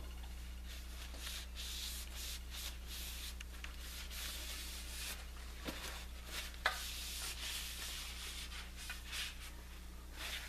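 Cloth rubbing over a carved wooden walking stick, wiping gel stain on and off as a glaze, in repeated soft swishes. There are a couple of small knocks about halfway through.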